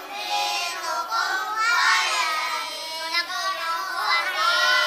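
A group of young boys chanting together in unison, their voices moving in a sing-song melody.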